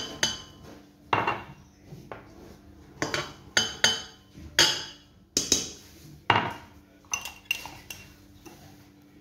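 Glass knocking again and again against a stainless-steel stand-mixer bowl: a dozen or so irregular, sharp clinks with short ringing, as icing sugar is tapped out of it.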